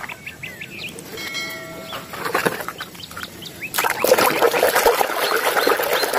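A hand swishes and sloshes a plastic toy through a tub of muddy water, splashing steadily from about four seconds in. Birds chirp in the background before the splashing starts.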